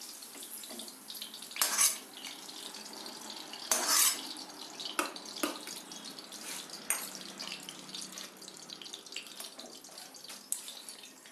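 Steel spoon scraping and clinking against a steel kadai and plate as fried capsicum pieces are scooped out, several sharp clinks with the loudest about four seconds in, over a faint hiss of hot oil in the pan.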